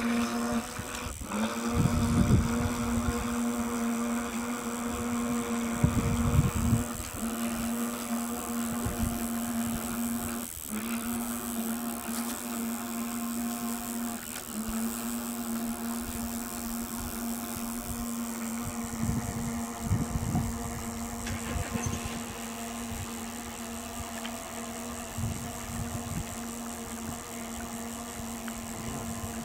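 Steady motor hum at one unchanging pitch, with gusts of wind buffeting the microphone.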